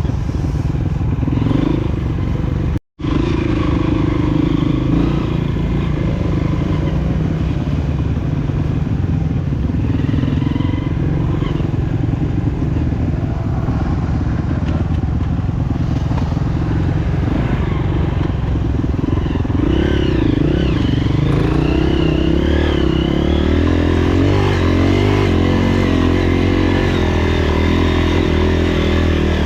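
Honda CRF230F's air-cooled single-cylinder four-stroke engine running steadily under load on a trail ride, with some clattering. The sound cuts out briefly about three seconds in.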